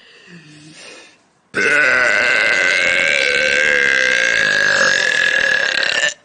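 One long, loud belch that starts suddenly about a second and a half in, holds a fairly steady pitch for about four and a half seconds, and stops just before the end.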